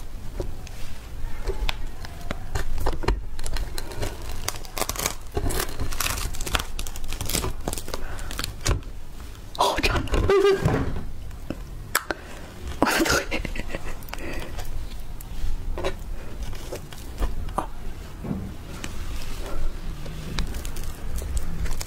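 Hands pulling soft durian pods out of the spiky husk: a run of crackling, tearing and clicking sounds from the husk fibres and flesh.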